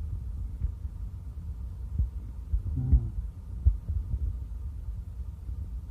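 A metal strainer ladle scooping boiled beef meatballs out of a steel pot, knocking sharply against the pot a few times over a steady low rumble.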